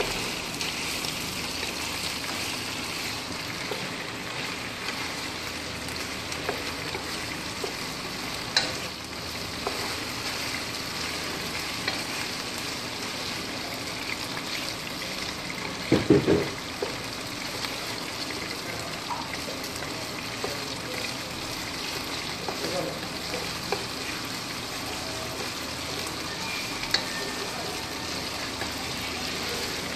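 Chicken pieces frying in their own fat in a non-stick pan, a steady sizzle, browning as they are stirred with a wooden spatula that scrapes and taps against the pan. A louder brief clatter comes about halfway through.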